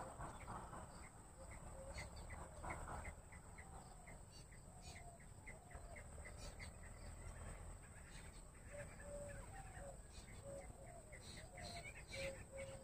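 Jungle bush quail calling: a long run of short high notes, about three a second. Fainter, lower short notes join in during the second half.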